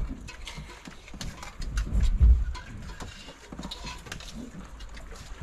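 Gusts of wind rumbling on the microphone aboard a small boat, with scattered short knocks and clicks. The rumble swells near the start and again about two seconds in.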